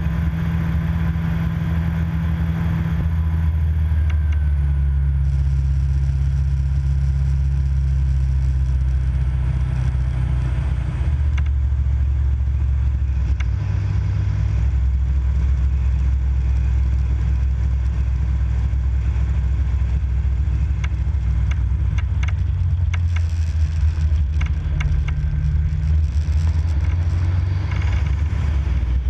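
Viper SD4 light aircraft's piston engine droning steadily, heard inside the cockpit, its note stepping down a few seconds in and shifting again about eleven seconds in. Scattered clicks and rattles come in the second half.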